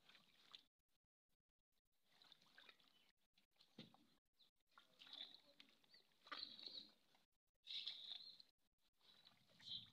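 Near silence with faint, scattered splashes and rustles of hands groping through shallow muddy water and floating water plants.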